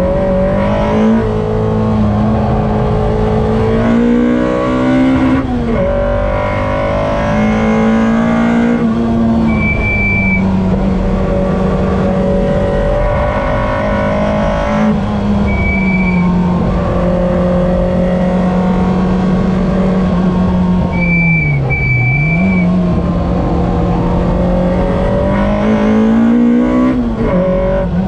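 Car engine at full throttle round a race circuit, heard from inside the cabin: the note climbs through each gear and drops at the shifts, with a sharp dip and recovery a little past two-thirds through. Short high tyre squeals come through in the corners, several times.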